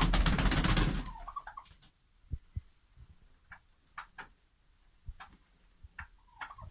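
A hen held for vent-feather trimming gives a loud, harsh squawk for about the first second, then a string of short clucks, with a few low thuds from the handling.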